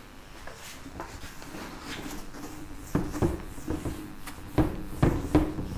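Whiteboard being wiped clean by hand: a run of six or seven short rubbing strokes and knocks against the board, starting about halfway through.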